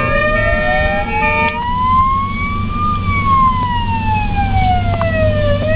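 Emergency-vehicle siren on a slow wail: one long sweep rising in pitch for about three seconds, then falling, starting to climb again near the end. Traffic and engine rumble runs underneath.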